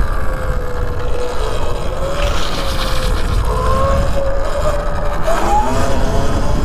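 Motorbike's motor running under throttle during a power wheelie. Its pitch wavers, then climbs about five seconds in, over heavy wind rumble on the microphone.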